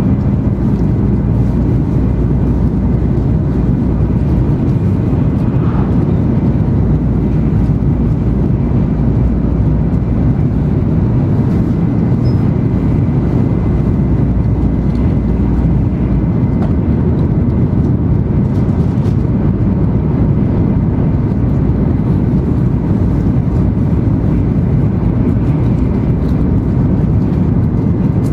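Steady low rumble of an N700 series 8000 Shinkansen running through at high speed, heard inside the passenger cabin beside the window: wheel, track and air noise, with a faint steady whine above it.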